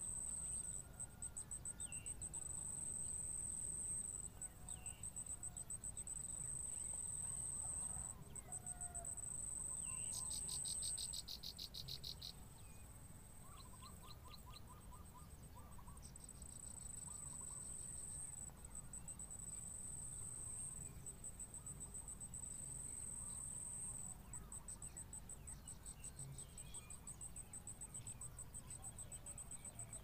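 Insects trilling steadily at a high pitch in a cricket-like chorus, the trill now smooth, now rapidly pulsed. About ten seconds in, a second, louder rapid pulsing buzz joins for a couple of seconds, and a few faint bird chirps come and go.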